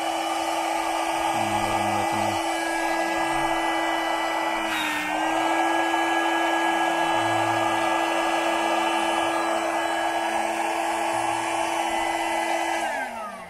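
Car-powered electric air pump running steadily as it inflates an air mattress toward full, a constant whine with hiss. Its pitch dips briefly about five seconds in, and near the end it is switched off and winds down with a falling whine.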